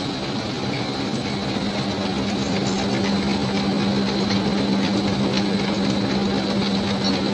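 Fabric-processing machine in a textile factory running steadily, striped fabric feeding over its rollers. A steady low hum joins the machine noise about a second in.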